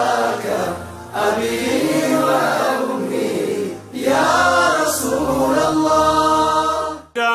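Islamic devotional nasheed: voices chanting in two long melodic phrases over a low steady drone, stopping abruptly near the end.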